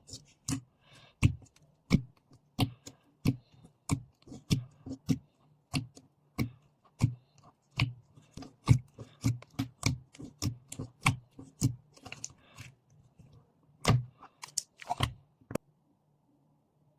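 Slime being pressed and squeezed by hand, making a steady run of sharp, clicky pops about one and a half a second, which stop near the end.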